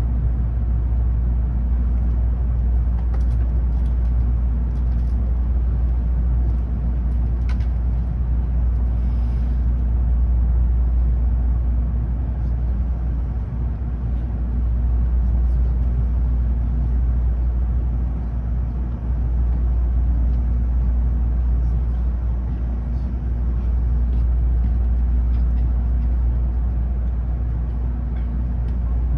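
Steady low rumble of a Tokaido Shinkansen train running, heard inside the passenger car, with a faint steady hum and a few light ticks.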